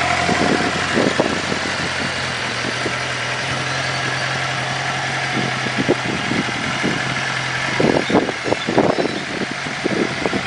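Suzuki GSX-R600 inline-four motorcycle engine idling steadily, with a few short, louder irregular sounds over it about a second in and again about eight to nine seconds in.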